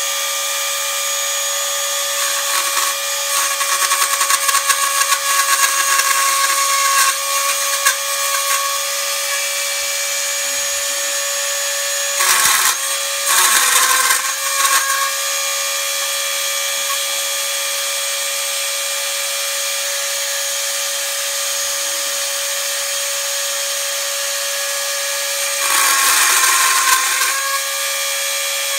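Dremel rotary tool running at high speed, a steady high whine. Three times (about twelve seconds in, again around fourteen, and near the end) its pitch sags and a rasping grind rises as the cutting wheel bites into the yellow plastic propeller blade.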